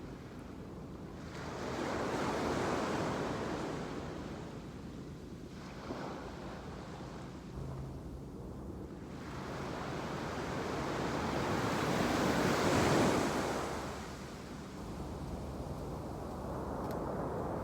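Surf breaking on a sandy beach, the wash swelling and fading in waves, with a larger break about two seconds in and the biggest one near the end. Wind buffets the microphone with a low rumble.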